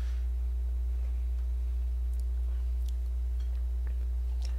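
Steady low hum with a few faint, short clicks, like small objects being handled.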